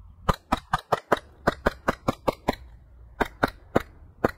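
Airsoft rifle firing a rapid string of single shots: about eleven sharp cracks in two seconds, a short pause, then four more.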